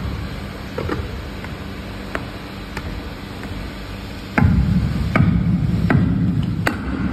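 Metal-on-metal knocks and scraping as a painted flanged housing is worked by hand onto a steel shaft and its bearing. A few light clicks come first, then about four seconds in a louder grinding rumble with four sharp clinks, over a steady low workshop hum.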